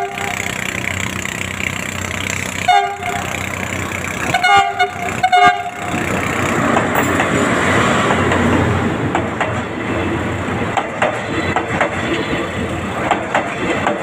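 A PNR diesel locomotive sounds several short horn blasts in the first six seconds. It then passes close by hauling its coaches, with a steady loud rumble and clacking wheels.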